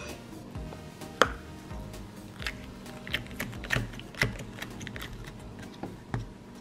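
Clear slime being pressed and kneaded by fingers, giving a string of sharp little clicks and pops, the loudest about a second in, over background music.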